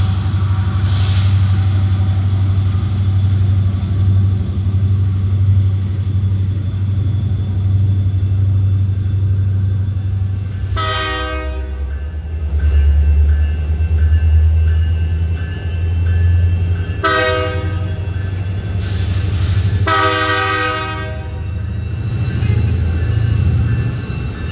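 A BNSF diesel freight locomotive approaches, its engine giving a steady low rumble. Its air horn sounds three blasts, about eleven seconds in, again around seventeen seconds, and a slightly longer one at about twenty seconds, warning for the road grade crossing ahead.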